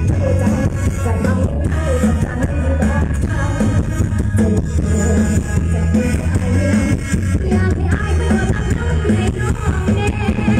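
Live band music with singing, played loud through a large outdoor PA system. The bass is heavy and the sound is recorded on a phone from within the crowd.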